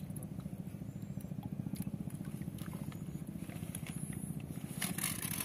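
A hooked tucunaré-açu (peacock bass) splashing briefly at the surface about five seconds in, over a steady, fast-pulsing low rumble.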